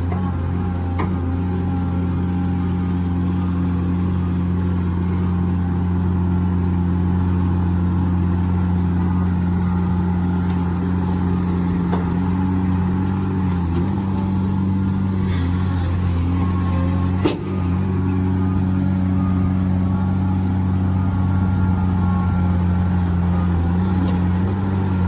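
Heavy construction vehicle's engine running steadily under load, its pitch shifting slightly a couple of times, with a single sharp knock about two-thirds of the way through.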